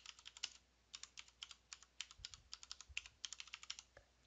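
Faint typing on a computer keyboard: a quick, uneven run of keystrokes.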